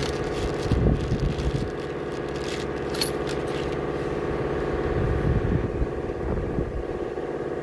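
Plastic wrapping crinkling as it is pulled off a new KYB shock absorber, with light scrapes and a click as the shock is handled. Under it an engine idles steadily.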